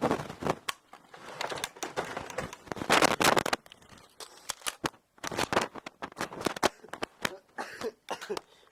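Plastic Nerf blasters being handled and worked: a run of sharp clicks and knocks, with a short hissing burst about three seconds in.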